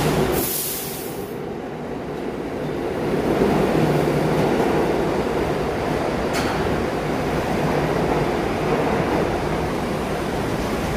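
New York City subway train moving along the station platform: a short hiss about a second in, then the steady rumble of the cars rolling past, with a single sharp click a little past the middle.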